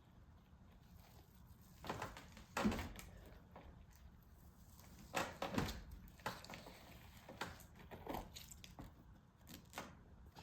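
Scattered light taps, clicks and rustles from small plastic containers and packets of slime toppings being handled and emptied, about seven of them at irregular times, the loudest two a little under 3 seconds in and just after 5 seconds.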